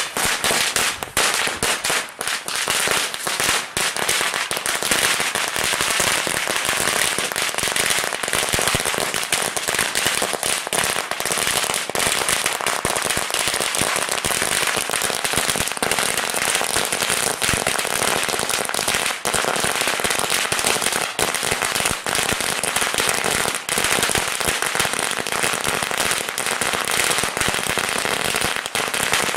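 A burning ground firecracker item going off in a fast, dense string of small bangs, too close together to count, at an even loudness without a break.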